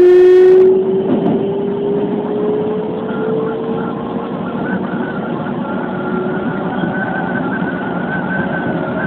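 Keikyu 2100 series electric train running, heard from inside, with steady rail and running noise. A short loud horn blast sounds at the very start, while the motor whine rises slowly in pitch as the train gathers speed. A steady higher whine then holds from about three seconds in.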